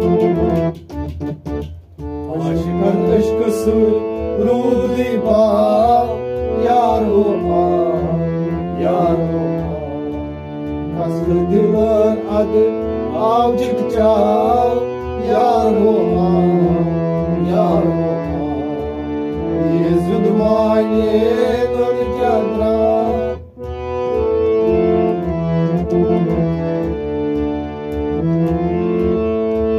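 A harmonium playing a melody over held chords, with a steady beat struck on a pot drum. The music drops out briefly about two seconds in and again about three-quarters of the way through.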